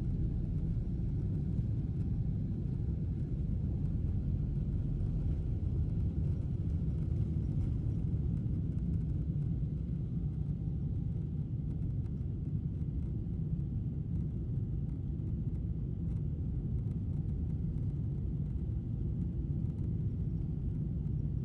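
Steady low rumble of an airliner heard from inside its cabin during takeoff: engine and airflow noise, with no change in pitch or loudness.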